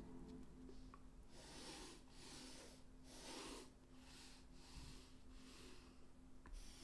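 Near silence: faint, soft strokes of a colored pencil on sketchbook paper, about one a second, over a faint steady hum.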